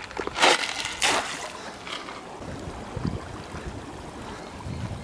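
Dry ice thrown into a swimming pool: two splashes about half a second apart near the start, then faint steady bubbling and gurgling as the dry ice sublimates underwater.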